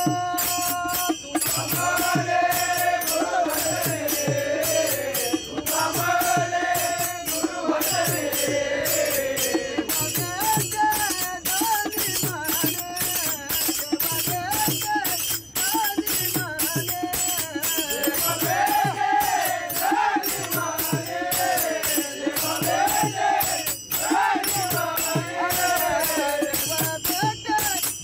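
A group of men singing a Marathi devotional bhajan together, with small brass hand cymbals struck in a steady, fast rhythm.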